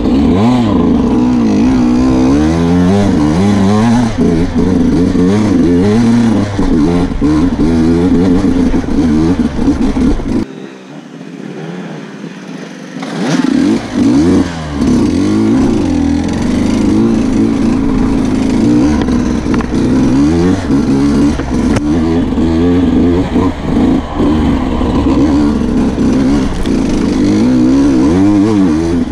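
Sherco 125 enduro bike's engine revving up and down continuously as it is ridden on a rough trail. About ten seconds in, the engine sound drops away for around three seconds, then picks up again.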